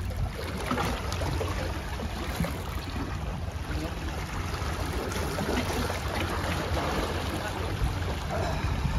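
Wind buffeting the microphone over small waves washing against the breakwater rocks, a steady rushing noise.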